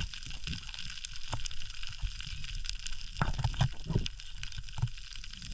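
Underwater ambience picked up by a camera in its housing: a steady crackling hiss full of fine ticks, with a few dull low thumps about three to four seconds in and again near five seconds.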